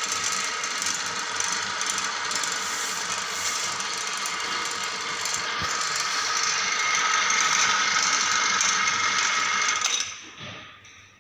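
Electric motor of a stand-mounted flavour mixer running at speed under test, a steady mechanical whine. About ten seconds in it is switched off and winds down to near silence within a second or so.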